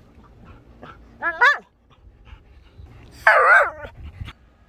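Dog vocalising during tug play with a rope toy: two short, wavering whiny yips a little over a second in, then a louder, harsher bark about three seconds in.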